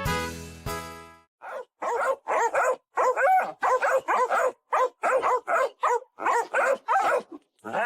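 A dog barking over and over, about three short pitched barks a second, some rising and falling in pitch.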